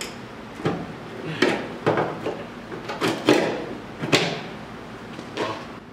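Body filler (Bondo) being pried and chipped off a steel car fender with a hand tool: a series of irregular sharp cracks and scrapes, about eight, the loudest a little past three and four seconds in.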